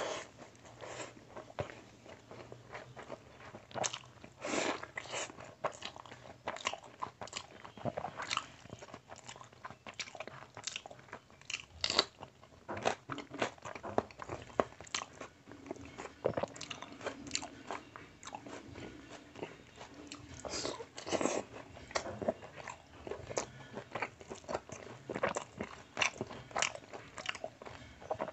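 Close-miked mouth sounds of a person eating rice and meat curry by hand: chewing and lip smacking, heard as irregular wet clicks and smacks.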